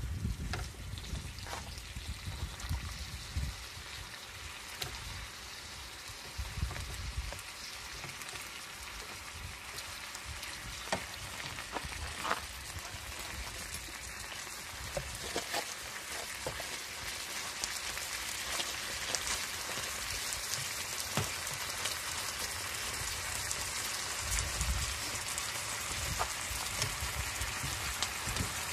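Ground meat and two burger patties sizzling in a frying pan on a portable camp stove: a steady hiss with scattered small pops. Wind rumbles on the microphone near the start and again near the end.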